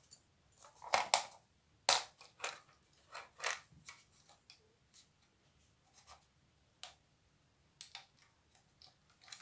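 Small clear plastic snap-shut case being handled: irregular clicks and scrapes of fingers and nails at its catch, which won't open. The loudest clicks come about one and two seconds in, and they grow sparser and fainter after that.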